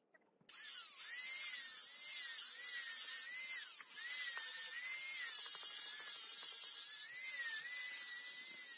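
Angle grinder with a 400-grit sanding disc on its backing pad, sanding the face of a forged steel hammer head. It makes a high whine that repeatedly sags and recovers in pitch as the disc is pressed on and eased off, over a loud hiss of abrasive on steel. It starts about half a second in.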